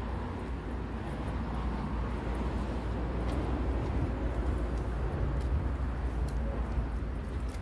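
Steady outdoor background noise with a strong low rumble and a few faint clicks.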